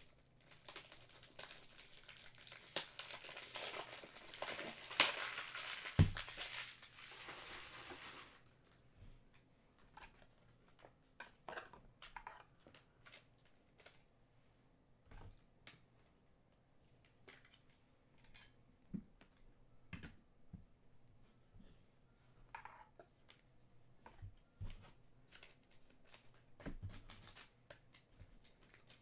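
Trading-card pack wrapper crinkling and tearing open for about the first eight seconds, then sparse soft clicks and taps of cards being handled.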